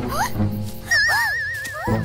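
Cartoon soundtrack music with whistle-like sound effects: quick upward swoops early on, then a high warbling tone about halfway in, over a steady low musical bed.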